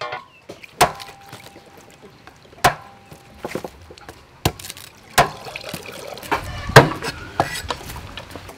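Food-prep clatter: a string of sharp knocks and clinks as ingredients and utensils are handled on a wooden board and around metal bowls, two of them with a short metallic ring, and a busier, louder patch of handling noise about two-thirds of the way through.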